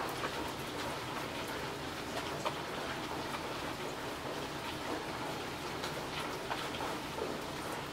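Steady rain falling on a wet road and fallen leaves: an even hiss with many scattered, sharp drop ticks.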